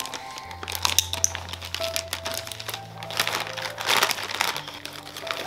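Plastic snack bag crinkling and crackling in irregular bursts as it is handled, over soft background music.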